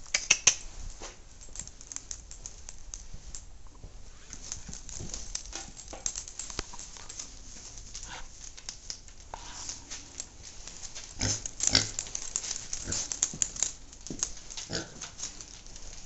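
Pot-bellied pig rustling through straw bedding and stepping out with its trotters clicking and scuffing on a concrete floor, a run of short sharp clicks and rustles. A louder, lower grunt-like sound comes a little after eleven seconds.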